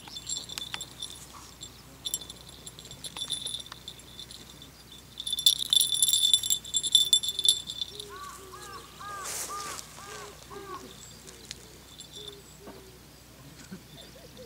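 Small jingle bell on a feather cat-teaser wand jingling in bursts as the toy is shaken, loudest from about five to eight seconds in. A quick run of repeated high notes follows near the middle.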